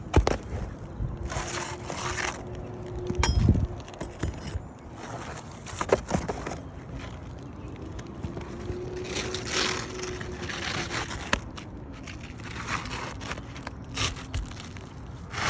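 Flat bar scraping and prying under asphalt roof shingles, with a few sharp knocks, the loudest about three seconds in, as the shingle seals are broken loose.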